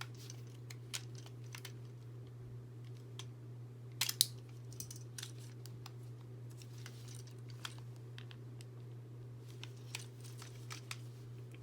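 Scattered small plastic clicks and taps of a Beyblade power launcher being handled and taken apart to switch its spin direction, with a sharper pair of clicks about four seconds in, over a steady low hum.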